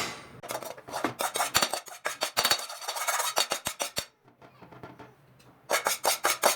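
Spatula scraping and stirring dry-roasted gram flour in a heavy-bottomed metal pan, in quick strokes several a second. The strokes pause about four seconds in and start again near the end.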